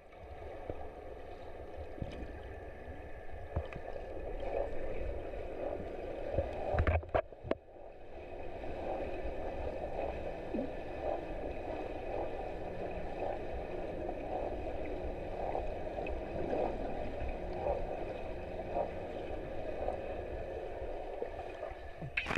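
Muffled underwater water noise heard through a submerged camera in a swimming pool: a steady rushing wash over a low rumble, broken briefly about seven seconds in.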